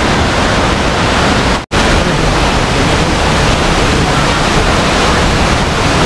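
Large waterfall in heavy monsoon flow: a loud, steady rush of falling water, broken once by a split-second dropout about one and a half seconds in.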